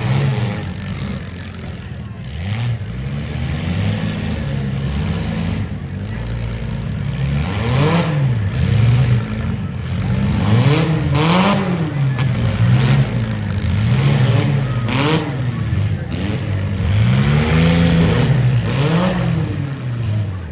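Several demolition derby cars' engines revving up and down over and over as they manoeuvre, with a few short bangs along the way.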